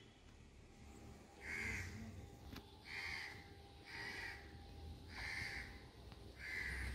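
A crow cawing five times, about a second apart, faint over a low background rumble.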